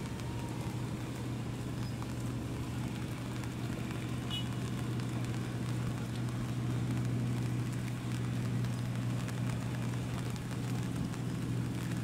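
Passenger ship's engines running with a steady low hum as the vessel passes close by, with a noisy hiss over it.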